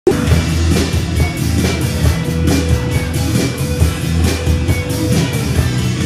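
Live rock band playing an instrumental intro: electric guitars over a steady drum-kit beat and a heavy bass, with one note held through the middle, before the vocals come in.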